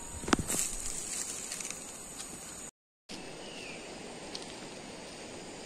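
Outdoor ambience: insects drone steadily at a high pitch over a low hiss, with a single thump about a third of a second in. The sound drops out completely for a moment near the middle.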